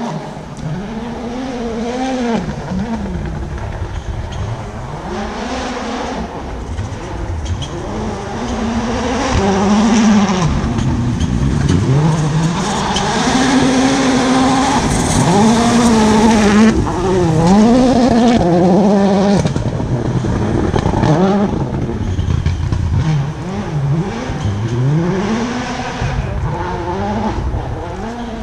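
Rally car driven at stage speed, its engine revs climbing and dropping again and again through gear changes and lifts. It grows louder toward the middle, passes loudest about halfway through with a hiss from the tyres, then fades as it pulls away.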